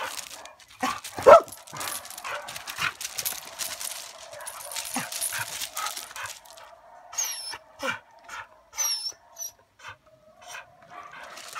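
Mixed-breed pit bull moving on gravel, the stones crunching under her feet, with one short yelp-like sound about a second in. A few high chirps follow near the middle.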